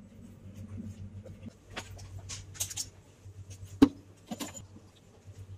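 Metal wire rack and perforated tray in a stainless steel cabinet being handled: scattered light clinks and scrapes, with one sharp clack a little before four seconds in, over a low steady hum.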